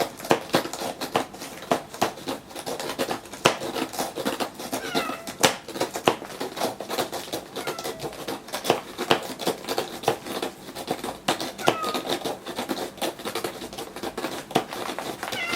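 A cat clawing a scratching board in quick, uneven scraping strokes, several a second, said to sound very lively and energetic. A few brief, high, falling squeaks come through now and then.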